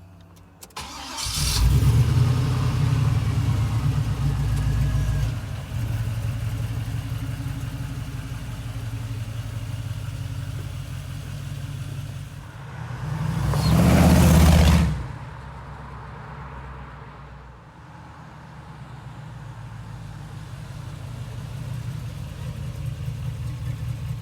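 GM LQ4 6.0-litre V8 starting about a second in and running, its first run after a fuel injector replacement. It runs a little higher at first and eases down about five seconds in. Around the middle it is revved once for about two seconds, then it settles back to a lower idle.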